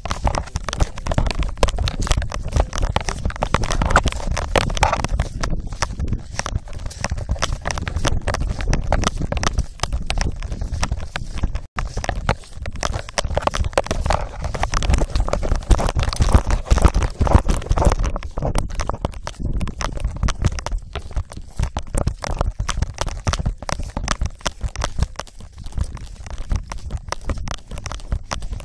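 Rumbling, rubbing and knocking of a phone duct-taped to a running dog's collar, jostled by each stride, with thumps of the dog's paws on the ground.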